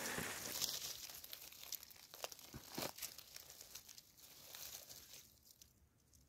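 Faint crackling and rustling of dry leaf litter and grass as a hand reaches in and pulls a porcino mushroom out of the ground, the crackles dying away near the end.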